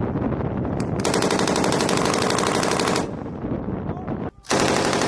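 Vehicle-mounted machine gun firing long, rapid bursts. One burst runs for about two seconds starting a second in, and a second burst starts near the end.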